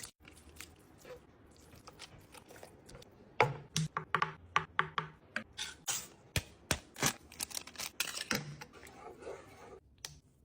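Kitchen food-prep sounds: a quick, irregular run of sharp cutting clicks and taps with a few dull knocks, busiest from a few seconds in to near the end.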